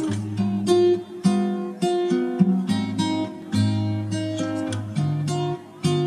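Background music on acoustic guitar, with plucked and strummed notes that ring and fade, a new one about every half second.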